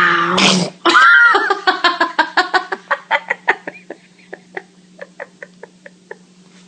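A small child's voice: a short pitched cry, then a long run of short rhythmic laughs, about four a second, that grow fainter and sparser.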